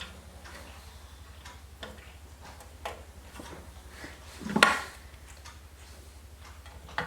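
Ratcheting Phillips screwdriver ticking in small clicks as a motherboard mounting screw is driven into the case, with one sharper clack about four and a half seconds in. A steady low hum runs underneath.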